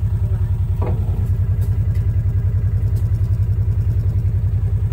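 Farm utility vehicle's engine idling with a steady, even low pulsing.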